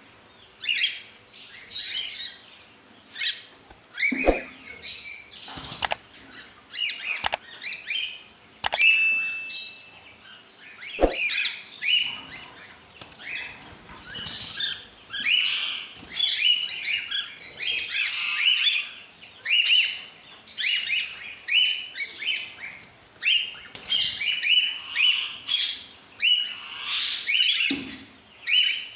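A flock of cockatiels chirping over and over in short calls, which come thicker in the second half. There are a few sharp knocks in the first half.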